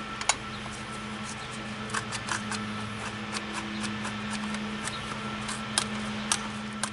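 A clamp being tightened against a lawn-tractor tire to try to break its bead: irregular small clicks and knocks, a dozen or so, over a steady low hum.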